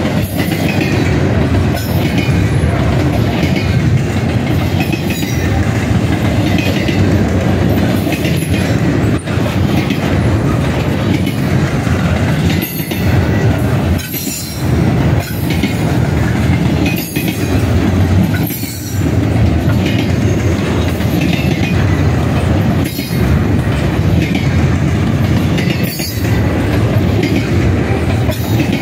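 Double-stack intermodal well cars rolling past: a steady, loud rumble of steel wheels on rail with repeated clicks of wheels over rail joints, dipping briefly a few times as the cars go by.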